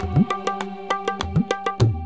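Background film score: a hand drum plays a brisk rhythm over sustained held tones, its deep strokes sliding upward in pitch.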